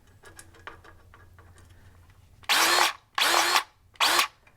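Battery-powered grease gun run in three short motor bursts, each whirring up to speed and stopping, pumping grease into a fitting. Before the bursts there are light clicks of handling.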